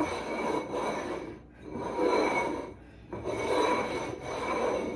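Plastic snack packaging crinkling and rasping as it is cut open with scissors and handled, in about four long passes.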